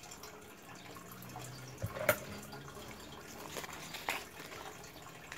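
Faint handling sounds of paper banknotes and the phone being moved: soft rustles with a few short clicks about two seconds in and again around four seconds, over a low room hum.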